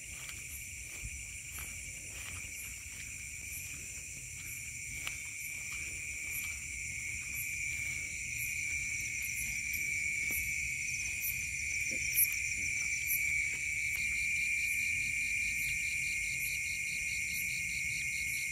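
Night chorus of crickets and other insects: several steady high-pitched trills layered together. A faster pulsing trill joins about halfway through, and the chorus grows a little louder.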